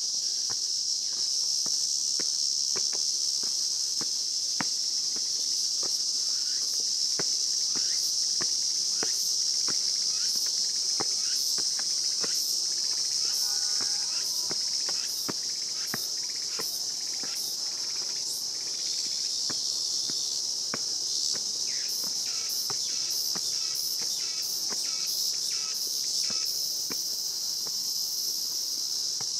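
A steady, high-pitched chorus of summer insects, with footsteps on stone steps ticking about once a second underneath. The steps grow fainter in the second half.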